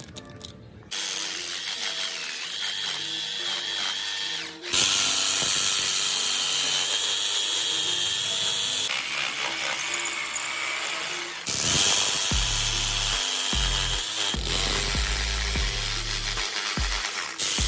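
Power drill running in several long runs with a steady high whine, drilling holes for the outdoor AC unit's wall-mount stand, over background music.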